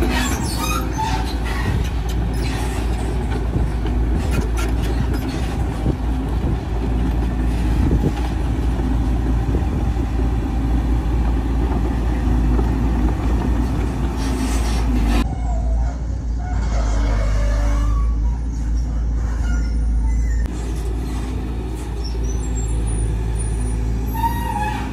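Volvo EC210DL excavator's diesel engine running steadily as the machine swings its long-reach arm and digs, with scattered knocks from the arm and bucket.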